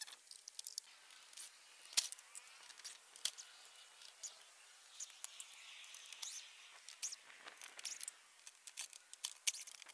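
Faint, scattered clicks and light taps of hand tools and plastic car trim being handled, with a sharper click about two seconds in and another a little after three seconds.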